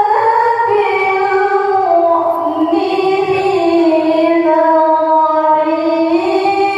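A woman reciting the Qur'an in the melodic tilawah style into a microphone: one long held phrase with slow, ornamented turns in pitch, rising near the end.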